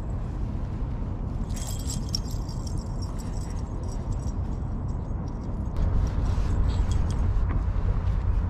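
Light metallic jingling, like small pieces of metal shaken together, for about four seconds, over a steady low rumble that gets louder near the end.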